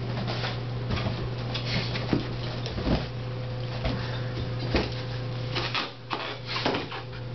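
A dog playing with balloons tied to its collar: irregular thumps, scuffs and knocks as it jumps, paws and mouths at the balloons. A steady low hum runs underneath and drops out for a moment about six seconds in.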